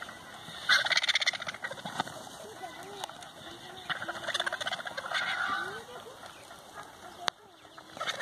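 Vultures squabbling over a carcass, giving harsh, rapid rattling calls in two loud bouts, about a second in and again around four to five seconds in, with lower croaking calls between them. There is a single sharp knock near the end.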